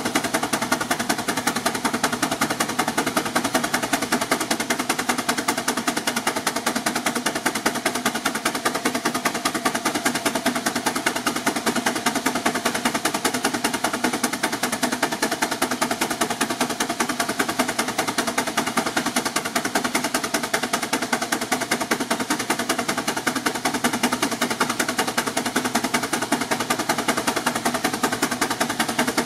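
Advance steam traction engine working hard under load on a dynamometer belt, its exhaust beating in a fast, steady, even rhythm.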